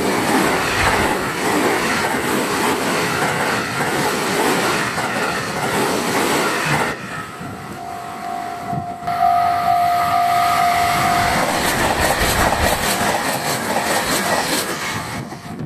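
Trains passing a level crossing at high speed, their wheels clattering rhythmically over the rail joints. There are two passes, with a break about halfway through where the crossing's warning bell rings steadily.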